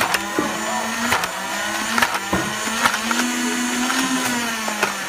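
Flywheel motors of a motorized Nerf blaster whirring, rising and falling in pitch as they spin up and down, with about eight sharp clicks as foam darts are fired.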